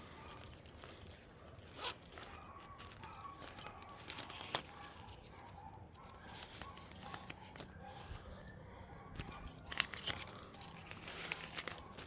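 Scattered light clicks, taps and small rattles, as of small objects or gear being handled, over a faint background.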